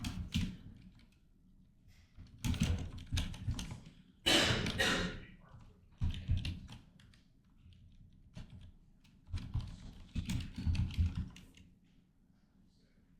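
Typing on a computer keyboard in several bursts of key clicks with pauses between, the loudest burst about four seconds in.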